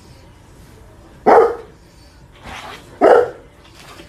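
A dog barking: two loud barks about two seconds apart, with a softer one between them.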